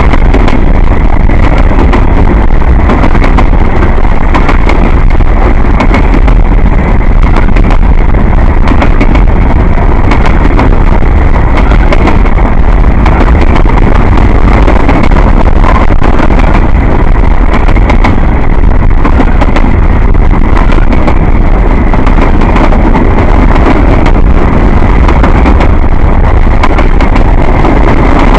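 Freight train rolling past close by: a loud, steady rumble and rattle of wheels on rail, with wind buffeting the microphone.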